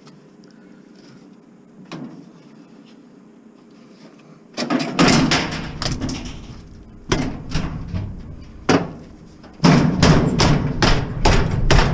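A single knock, then a few seconds later a run of loud knocks, bangs and clattering as metal scrap from a discarded appliance is handled and worked apart.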